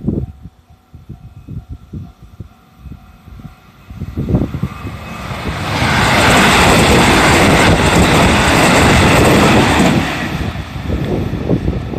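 JR 313 series electric train passing over a level crossing: the wheel-and-rail noise builds from about four seconds in, is loud for about four seconds, then eases off. Wind buffets the microphone at the start, and a level-crossing warning bell rings faintly on and off.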